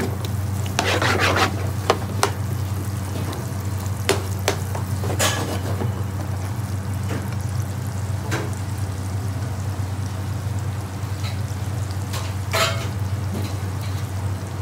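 Sliced onions and green chillies frying in oil in a pan on high gas, sizzling, while a metal spoon stirs them and scrapes and knocks against the pan several times. A steady low hum runs underneath.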